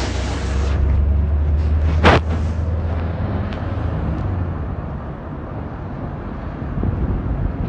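Low, steady rumble of a motor vehicle running close by, easing off in the second half, with one sharp knock about two seconds in.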